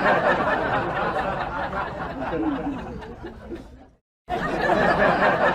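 Many voices chattering and laughing at once, a dense crowd babble that cuts out briefly about four seconds in and then resumes.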